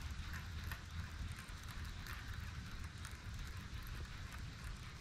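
Daiwa Tatula TW100 baitcasting reel being wound steadily as a vibration lure is retrieved, a soft even whirr over a steady low rumble.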